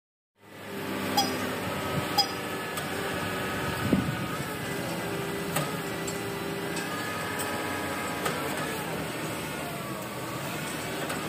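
Kato SR250SP rough-terrain crane's diesel engine running at a steady hum, fading in about half a second in. A few sharp metallic clinks and knocks are scattered through.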